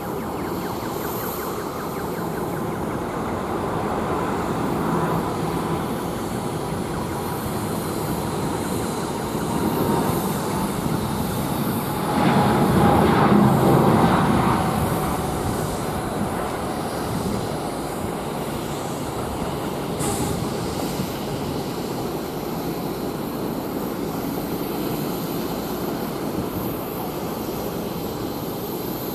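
Boeing 747-8F freighter's four GEnx-2B turbofans at takeoff thrust: a steady jet roar with a thin whine running through it. The roar swells to its loudest about twelve seconds in, then eases off.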